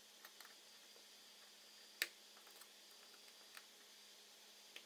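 Near silence broken by a few faint ticks and one sharp click about two seconds in, from a small precision screwdriver working a tiny screw on the metal LCD shielding plate of an iPhone 5's front screen assembly.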